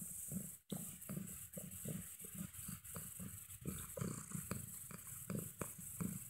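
Domestic cat sniffing right at the phone's microphone: short soft puffs of breath, about three a second.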